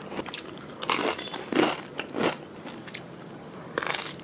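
Close-miked chewing and mouth sounds of a person eating: irregular wet crunches and smacks, then a louder sucking slurp near the end as he licks food off his fingers.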